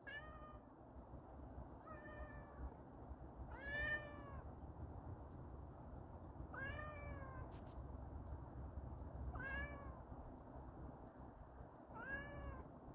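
Domestic cat meowing repeatedly: six fairly faint meows a couple of seconds apart, each rising and then falling in pitch.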